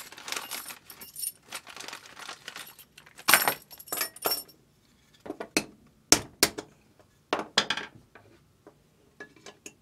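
A plastic bag rustling as metal conduit cable connectors are taken out, then the connectors and their locknuts clinking against each other and being set down on a wooden workbench, with a few separate sharp clicks in the second half.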